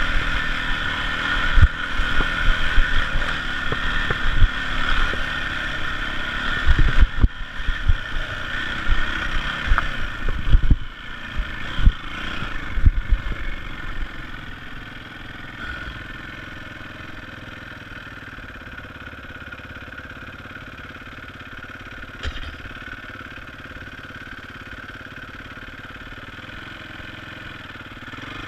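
Yamaha dirt bike engine running over a rocky trail, with knocks and clatter from the bike bouncing over rocks. About halfway through it settles to a quieter, steady run with few knocks.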